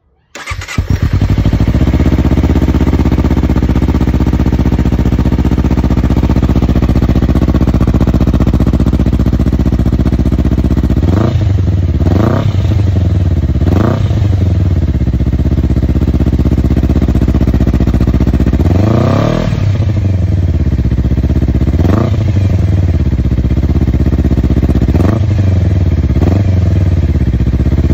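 Honda CBR250RR parallel-twin engine through an Akrapovič carbon slip-on silencer. It starts about half a second in and idles steadily. From about halfway through, the throttle is blipped about seven times in short revs that fall straight back to idle.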